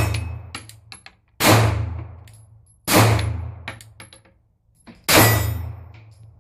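Glock 43 9mm pistol firing four shots about a second and a half apart, each with a long fading echo and light clicks in between. The snow-packed pistol is cycling and firing normally.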